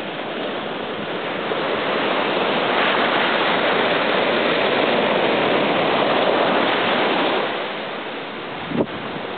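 Ocean surf washing up the beach: a steady rushing noise that swells for a few seconds and then eases, with one brief tick near the end.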